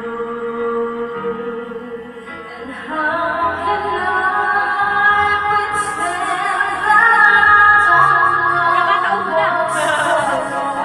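A woman singing into a handheld microphone over a backing track. Her voice comes in about three seconds in and grows louder, holding high, wavering notes.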